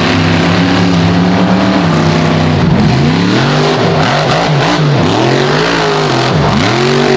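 Loud car engine revving: it holds steady for about two seconds, then the pitch rises and falls again and again. It starts and cuts off abruptly.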